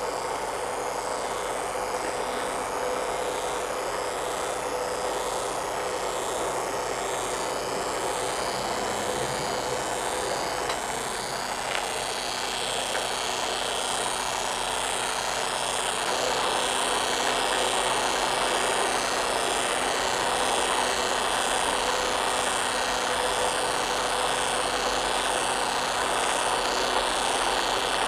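Buzzing and humming of a T gauge PCB linear motor track, its coil sets stepping magnet-bottomed plastic model trains along with a loose rattling. The drone grows louder a little past halfway through.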